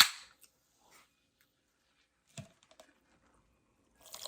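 Coke being readied and poured: a sharp click at the start, a soft knock about two and a half seconds in, then a fizzing pour beginning just before the end.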